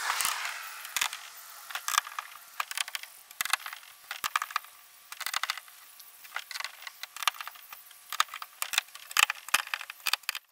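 Screws being hand-tightened with a Phillips screwdriver into a plastic kayak hatch ring: many small, irregular clicks and ticks of the screwdriver and screws, with a brief scrape at the very start.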